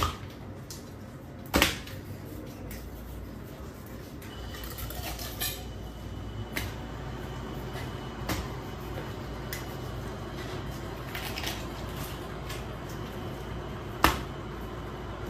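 A large raw fish being handled and filleted on a plastic cutting board: two loud thuds as the fish is set down on the board, one near the start and one near the end, with lighter knocks and knife clicks between, over a steady low hum.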